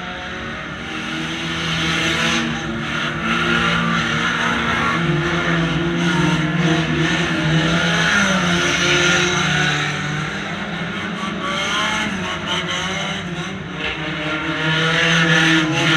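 Banger racing car engines running and revving while stationary, heard from inside a stripped car's cabin; the pitch rises and falls and the sound grows louder after the first couple of seconds.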